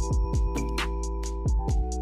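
Background music: an electronic track with held keyboard chords over a deep kick drum and sharp, crisp drum hits keeping a steady beat.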